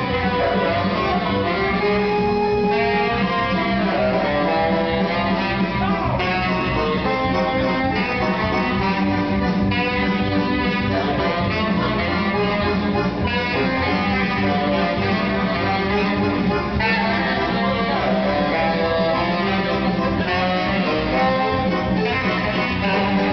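Saxophone played live over recorded backing music with guitar and a steady bass. The music runs on without a break.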